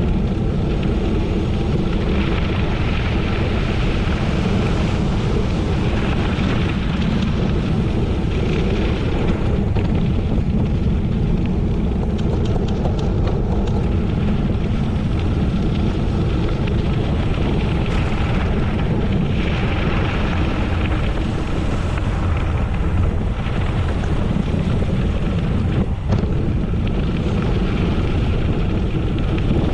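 Steady wind rushing over the microphone of a camera on a gravel bike ride at speed.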